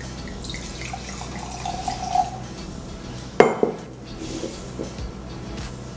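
Rosé wine poured from a glass bottle into a stemmed wine glass, a steady pour of about two seconds. Then comes one sharp glassy knock, the loudest sound, which is glass striking a hard surface.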